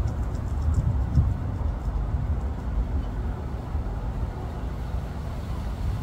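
Steady low outdoor rumble, with a few faint ticks in the first second.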